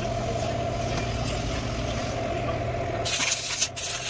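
A steady mechanical hum like an idling engine, joined about three seconds in by a sudden loud hiss that cuts out briefly and then resumes.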